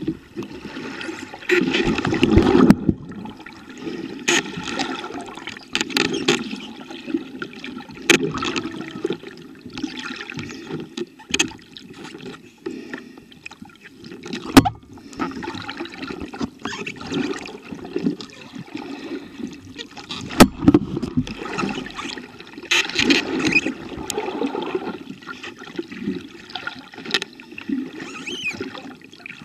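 Muffled underwater water movement and gurgling, with irregular clicks and knocks throughout and two sharp knocks in the middle third.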